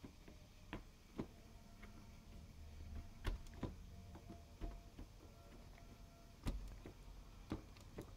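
Faint clicks and taps of a plastic stick pressing coloured strings into a white plastic hole-grid board, about seven sharper taps at uneven intervals.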